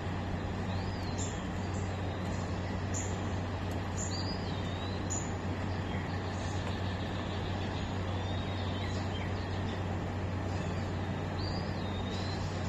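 Steady low hum under an even rushing background noise, with short high chirps now and then.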